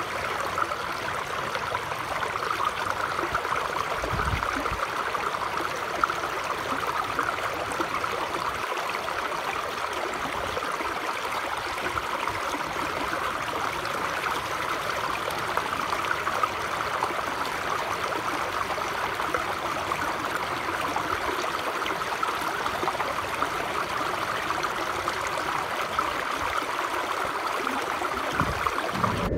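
Shallow stream rushing and splashing over rocks, close by: a steady, even rush of water.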